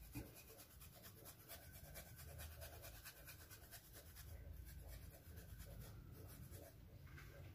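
Khoya kheer being grated on a small handheld metal grater: faint, rapid scratching strokes.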